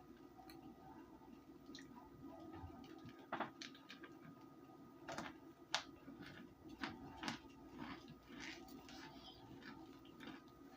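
A person chewing chunks of cornstarch: a scatter of small crisp crunches and clicks, irregularly spaced, over a faint steady hum.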